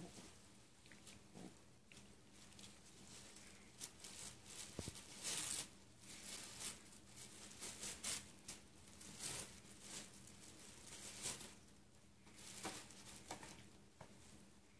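Tissue paper and a paper gift bag rustling and crinkling in irregular short bursts as a small dog roots its head into the bag and tugs at the tissue.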